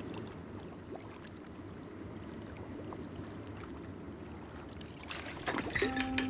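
Soft, steady lapping of calm water. About five and a half seconds in come clicks and liquid sloshing from a glass bottle being drunk from, and a low steady tone sets in just before the end.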